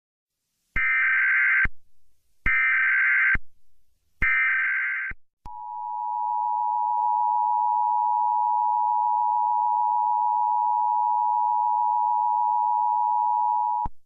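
Emergency Alert System signal for a National Weather Service Required Weekly Test: three identical bursts of digital header tones, each about a second long, then the steady two-tone attention signal held for about eight seconds, cutting off suddenly near the end.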